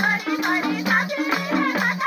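Group of women singing a Nepali rateuli folk song together. Tambourine jingles and hand claps keep the beat over a steady low accompaniment.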